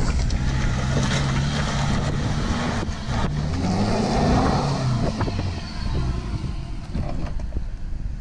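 Land Rover Defender's diesel engine pulling in a low gear as it climbs a rough lane, its pitch rising and falling, with tyres crunching over wet loose stones. It grows fainter over the last few seconds as the vehicle moves away.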